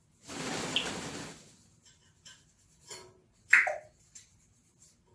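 African grey parrot making a rough, noisy sound lasting about a second, then a few small clicks and a short, sharp squeak about three and a half seconds in.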